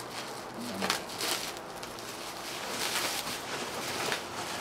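Plastic bubble wrap rustling and crinkling as it is handled, with louder crinkles about a second in and again around three seconds.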